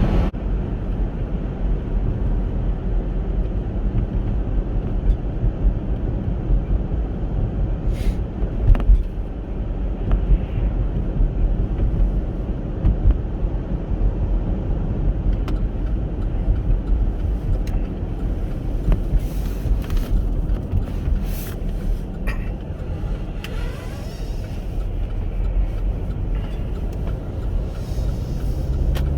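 Steady low rumble of engine and tyres heard from inside a Chevrolet Captiva while driving, with a few brief clicks and knocks in the second half.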